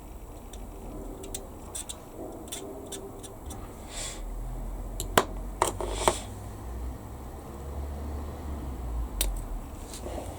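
Light clicks and taps of plastic model-kit parts and tools being handled on a workbench, with a few sharper snaps midway and one near the end.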